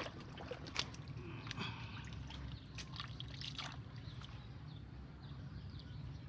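A hand working through shallow muddy water: small splashes, drips and trickles, with scattered short clicks mostly in the first few seconds.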